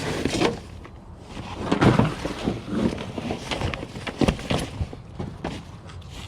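Irregular knocks and clunks, a few loud ones about two and four seconds in.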